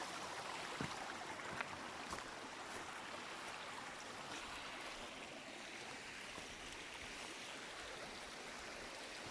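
Running water from a stream, a steady rushing hiss, with a few faint clicks in the first couple of seconds.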